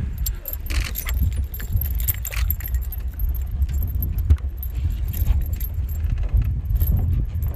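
Fishing tackle clicking and rattling (spinning rod, reel and lure) as a caught fish swings on the line, over a steady low rumble.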